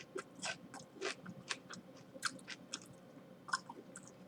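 A person chewing a bite of a crispy fried chicken sandwich topped with fresh jalapeno slices, with irregular crunches about three a second.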